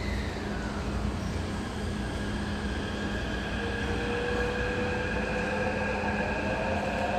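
Taipei Metro train pulling out of an underground station: a low rumble with a motor whine of several tones that starts about three and a half seconds in and rises slowly in pitch as the train speeds up.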